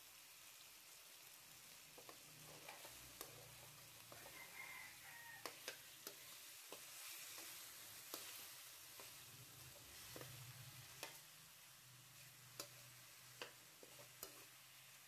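Chicken pieces frying with a faint steady sizzle in an aluminium wok, with a metal spatula clicking and scraping against the pan every second or so as they are stirred.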